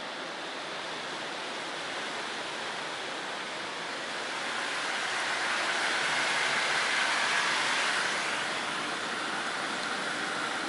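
Steady hiss of heavy rain from a storm outside, growing louder about halfway through and easing a little near the end.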